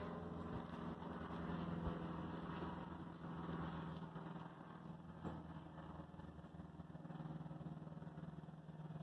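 A steady low mechanical hum, like an engine or motor running evenly, with a few faint knocks about two and five seconds in.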